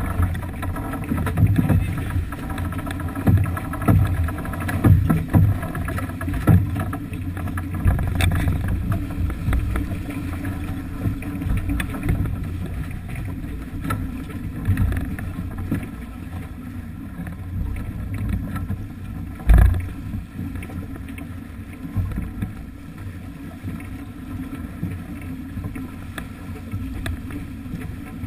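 Sailing yacht under way: a low, gusty rumble of wind buffeting the microphone and water rushing past the hull, with one sharp knock about two-thirds of the way through.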